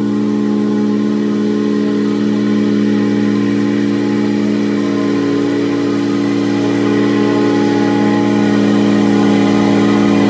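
Riding lawn mower engine running at a steady speed, growing slightly louder as the mower drives closer.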